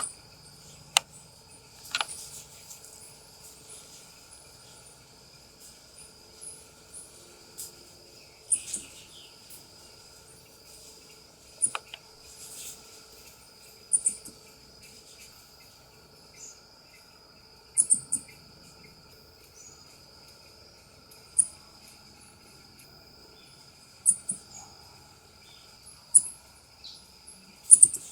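South American ring-tailed coati giving short, sharp, high-pitched chirps, repeated every two to four seconds. A steady high insect drone runs beneath.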